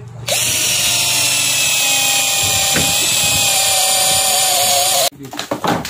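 XLNT 21 V cordless drill driver running at steady speed, driving a self-drilling screw into a steel bar: a loud, even motor whine that starts just after the beginning and cuts off abruptly about a second before the end, followed by a few short clicks.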